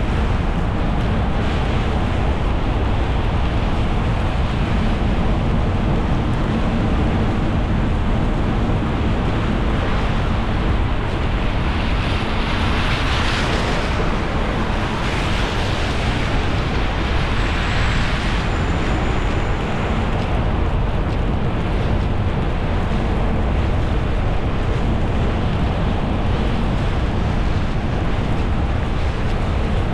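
A car driving on a wet road in the rain: steady tyre and road noise with a low rumble. Around the middle the hiss swells twice, as other vehicles pass on the wet pavement.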